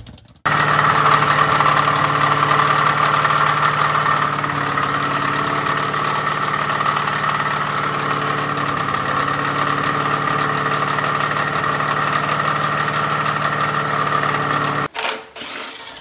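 Ford 302 small-block V8 running with a steady, rapid knocking from the bottom end. Teardown found the rod and crankshaft bearings completely trashed. The sound cuts off near the end.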